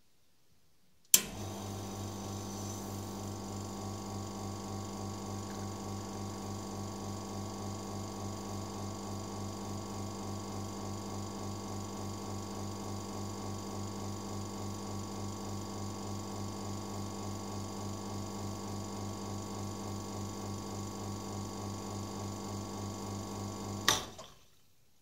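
Espresso machine pump switching on with a click about a second in, then running with a steady hum while a shot is pulled through a bottomless portafilter. Just before the end it switches off with a click and a short hiss as the pressure is released, ending the shot.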